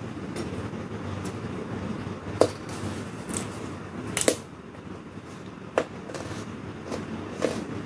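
Crisp crunches of raw vegetables being bitten and chewed, five sharp ones at irregular intervals, over a steady low rumble.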